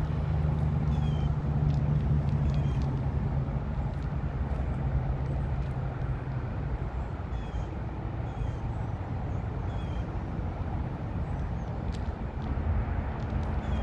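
Steady low engine hum, from a passing vehicle, that fades away about halfway through, over outdoor background noise, with faint short bird chirps repeating every second or so.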